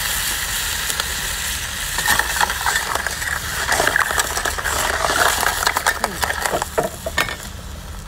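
Mixed seafood sizzling in a steel wok as cooking wine goes in. From about two seconds in, a metal ladle scrapes and clinks against the wok as the seafood is stirred.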